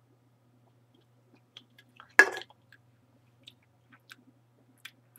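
Someone drinking soda: faint mouth and swallowing clicks, with one louder short gulp about two seconds in.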